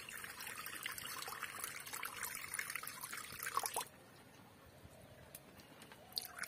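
Water poured from a jug into a metal wok, splashing and trickling on the metal as the wok is rinsed. The pouring stops abruptly about four seconds in, and a short pour starts again near the end.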